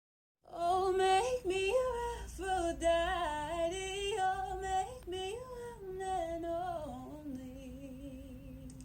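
A female voice singing a melody, starting about half a second in and slowly getting quieter toward the end.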